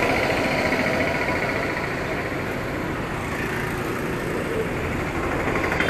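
Motorcycle engine idling steadily with a fine, even firing rhythm, under a dense wash of street noise.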